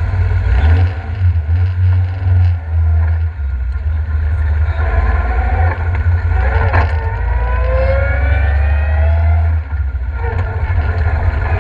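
Inside the cabin of a Ford Escort Mk2 rally car fitted with a Mazda RX-8 rotary engine, driving at low speed: a steady low engine drone, joined about halfway through by a whine that rises in pitch for several seconds before dropping away. A single sharp knock sounds near the middle.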